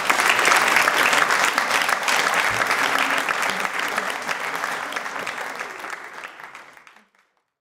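Audience applauding, a dense patter of many hands that fades away over the last few seconds and ends in silence.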